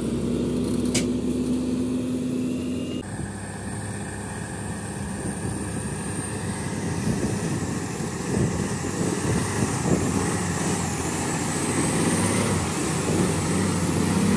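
Diesel engine of a loaded Mack tractor-trailer running hard under load as it drives through deep mud. About three seconds in, the sound changes abruptly from a steadier engine hum to the heavier, rougher running of the working truck.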